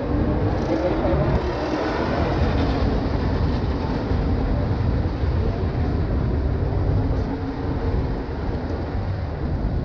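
Steady, noisy rumble of a ride in an open golf cart rolling along paving, with no distinct engine note.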